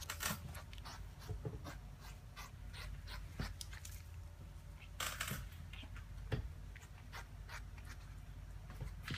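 A cat under the effect of silver vine (matatabi), making short breathy bursts about five seconds in, among scattered small clicks and rustles, over a low steady hum.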